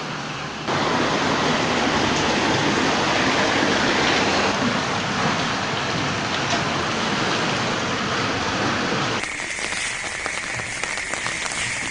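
Flood footage's own sound: a loud, steady rush of water and rain noise, with abrupt cuts between clips. Near the end it changes to rain pattering, dense small ticks over a steady high tone.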